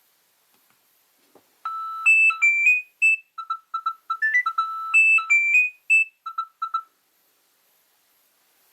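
Nokia 3200 mobile phone playing a ringtone through its speaker: a quick melody of short, high, beeping notes, starting about a second and a half in and stopping about seven seconds in.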